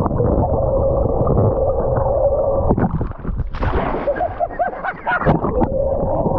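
Fishing reel being cranked fast against a fish, its gear whine rising and falling with each turn of the handle, over wind and the boat's motor.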